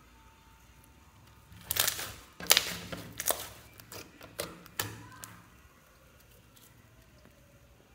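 Pink slime squeezed and pressed by hand, giving an irregular run of sticky clicks and pops for about three and a half seconds, starting a little under two seconds in.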